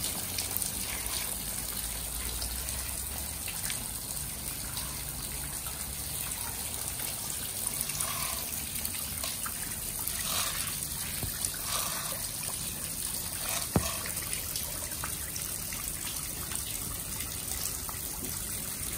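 Steady trickling and splashing of water into an inflatable paddling pool, with small splashes and knocks from toys in the water and one sharp knock about 14 seconds in.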